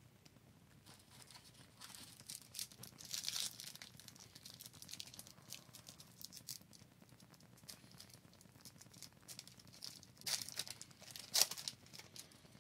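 Faint crinkling and rustling of a trading-card pack wrapper and cards being handled, with short louder bursts of crinkling about two to three seconds in and again near the end.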